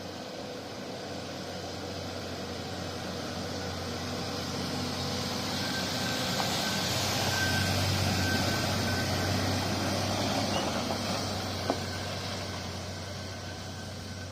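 A loaded truck driving past: engine hum and tyre noise growing louder as it approaches, peaking about halfway through, then fading as it goes away. A single sharp click comes shortly after it passes.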